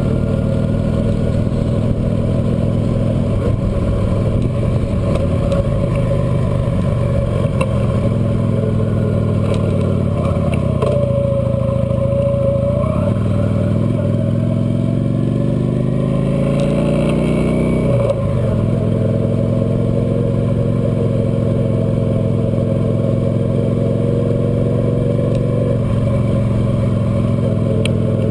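Cruiser motorcycle engine running under way. About ten seconds in the engine note eases down as the bike slows, then climbs steadily for several seconds as it accelerates. The note drops abruptly at a gear change and settles into a steady cruise.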